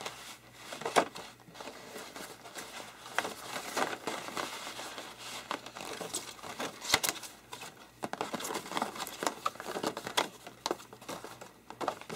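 Sheets of posterboard handled and folded by hand: irregular rustling and crinkling with sharp paper snaps and taps, the sharpest about seven seconds in.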